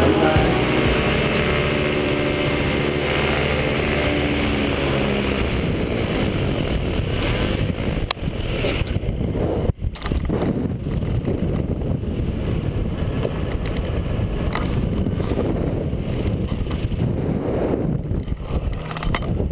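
Background music fading out over the first few seconds, giving way to a paramotor's engine and wind rushing over a helmet-mounted microphone. The sound drops out for a split second about ten seconds in.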